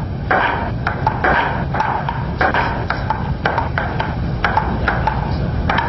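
Table tennis rally: a ping-pong ball clicking back and forth off paddles and table, about two hits a second, over a steady low rumble.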